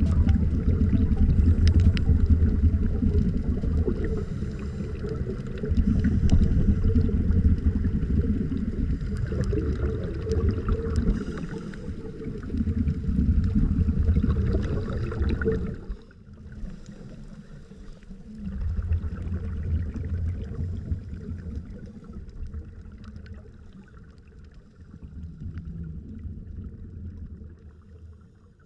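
Scuba diver breathing through a regulator, heard underwater: low, rushing surges of exhaled bubbles every few seconds, growing weaker and fading out near the end.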